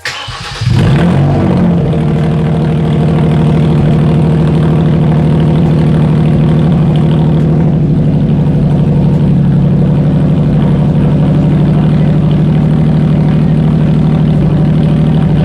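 Hyundai Genesis Coupe's 3.8-litre V6 with its cat-back exhaust removed, starting up open-piped behind the catalytic converters. It flares briefly about a second in, then settles into a loud, steady idle.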